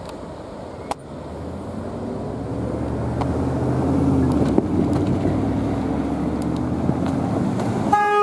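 Freight train autorack cars rolling past and away over the rails, a steady rumble that swells a couple of seconds in. Near the very end a short horn toot sounds.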